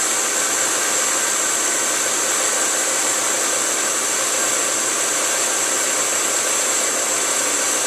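Bridgeport vertical milling machine running steadily with its cutter spinning, giving an even hum topped by a high whine.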